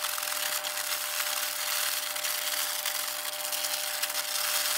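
A resealable plastic bag of shell-on shrimp being shaken and worked by hand to coat them in oil and seasoning, played back sped up. It makes a steady, even rustling hiss that sounds thin, with nothing deep in it.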